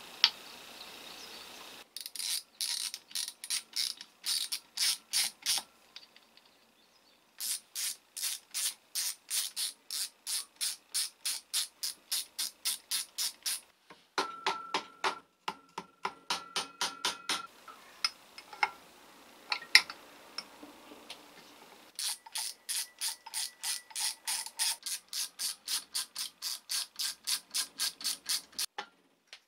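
Runs of quick, evenly spaced knocks and clicks, about three a second, from hand tools at work on the aluminium housing of a 1959 Hokushin Denki electric blower during disassembly. A steady high tone sounds for a few seconds about halfway.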